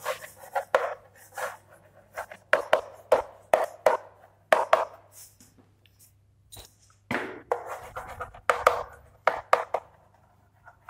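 Chalk writing on a blackboard: a string of short scratches and taps as letters are written out, in irregular runs with a brief pause about midway.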